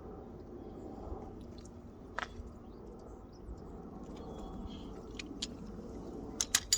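Faint hand-work noise with a few sharp clicks, the loudest cluster near the end, from silicone sealant being worked around a shore power inlet on a van wall.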